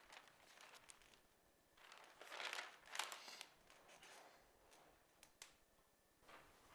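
Soft rustling of a newspaper as its pages are turned and settled flat, in a few short bursts, the loudest about two and a half to three seconds in.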